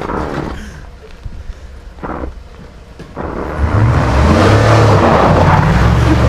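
Ford F-150 pickup's engine running hard as the truck pulls away on snow. It grows loud about three seconds in, after a couple of brief, quieter noises.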